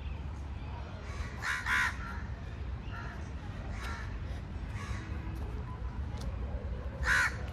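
Crows cawing in a few short, harsh calls: two close together about a second and a half in, a couple more around four seconds, and a loud one near the end, over a steady low rumble.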